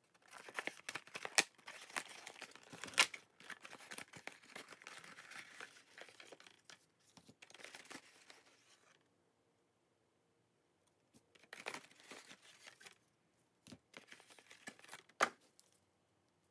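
Cardboard and plastic packaging of a trading-card mystery box being torn open and crinkled by hand, a busy run of tearing for about eight seconds. After a pause come a few shorter rustles of the packs being handled, with one sharp crackle near the end.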